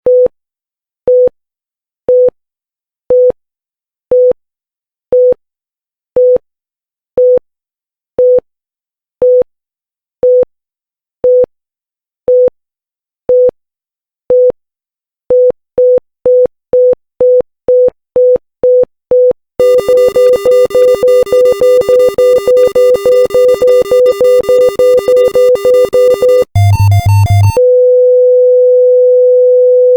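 Synthesized heart-monitor beep, a single steady tone pulsed about once a second, speeding up after about halfway to roughly two beeps a second, then racing far faster over a buzzing alarm tone: a rising heart rate running into cardiac arrest. A short warbling alarm follows, then the beeping gives way to one continuous flatline tone, the sign of the heart stopping.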